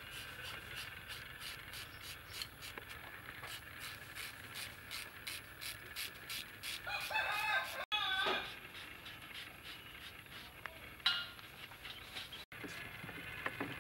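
A rooster crows once, about seven seconds in, and a chicken gives a short cluck a few seconds later. Underneath, a small knife blade scrapes pork belly skin in quick, repeated short strokes.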